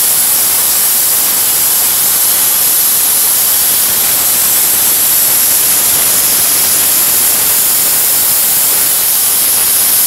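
Slopehill brushless-motor hair dryer running in its self-cleaning mode, blowing cold air at full power: a loud, steady rush of air with a high-pitched whine on top.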